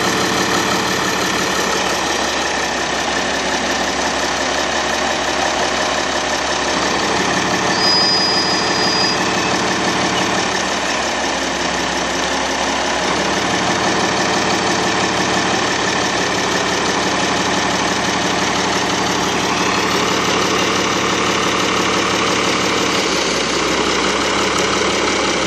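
An engine running steadily at idle, a loud continuous hum with no clear breaks.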